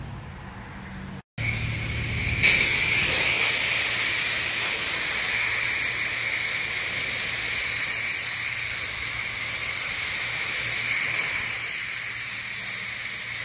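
Car-wash pressure washer wand spraying water onto a car in a steady, loud hiss. It starts after a brief cut a little over a second in and gets louder about a second later.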